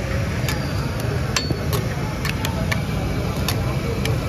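Metal spatulas striking a flat iron tawa while liver is fried, about ten irregular clanks, some leaving a short metallic ring, over a steady low background rumble.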